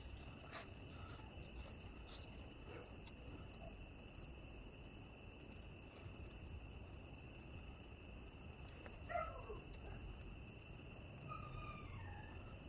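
Crickets chirping in a steady high-pitched trill. A few faint falling calls come in about nine seconds in and again near the end.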